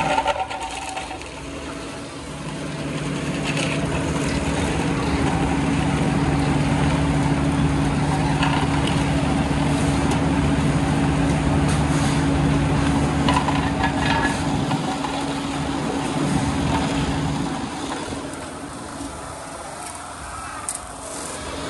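Asphalt finisher's engine running steadily, with occasional scrapes and knocks of rakes and shovels working the asphalt. A lower engine note drops out about three-quarters of the way through and the overall level falls for a few seconds near the end.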